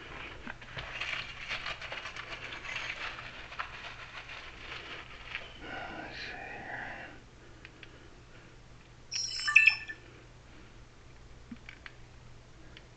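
Small metal parts and tools being handled at a door, with scraping and clicking for the first several seconds, then a brief bright metallic jingle about nine seconds in.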